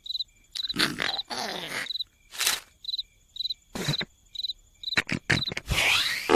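Cartoon night-time soundtrack: crickets chirping in short high pulses, about two a second, broken by several louder bursts of the characters' wordless vocal noises.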